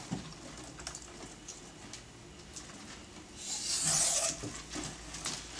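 Curling ribbon being pulled along a scissors blade: faint ticks and rustles, then a loud hissing rasp lasting about a second, a little past the middle.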